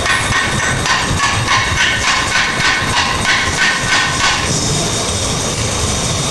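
Repeated hammer blows ringing on metal, about two to three a second, stopping about four and a half seconds in, over a steady noisy rumble.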